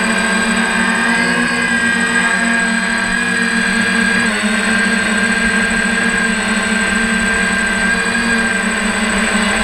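DJI F550 hexacopter's six brushless motors and propellers droning steadily in flight, heard close up from a camera on the craft, the pitch shifting slightly about four seconds in.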